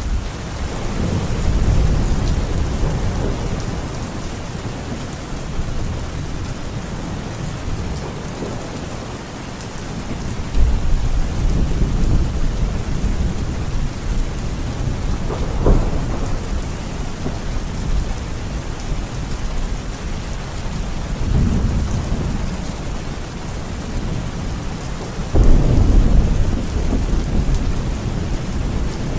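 Steady heavy rain with rolls of low thunder rumbling several times, the strongest starting about ten and twenty-five seconds in.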